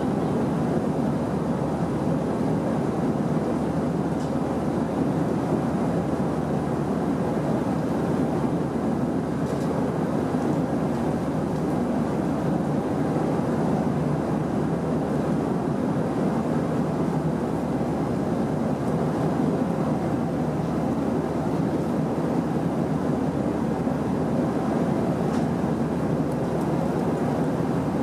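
Steady cabin noise of an Airbus A319 airliner in flight, a constant roar of engines and airflow heard inside the cabin.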